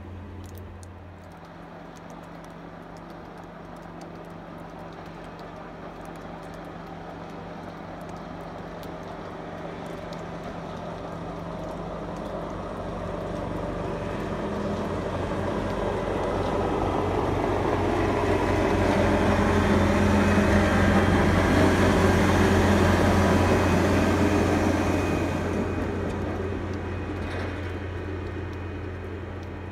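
MCR800 rotary snow-removal rail vehicle coming closer and passing by: a steady low engine drone under the noisy rush of its rotary blower throwing snow clear of the track. The sound builds slowly, is loudest from about 18 to 25 seconds in, and fades near the end.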